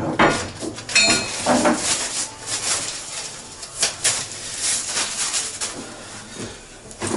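Hands being wiped clean on a cloth rag: an irregular run of rubbing and rustling strokes.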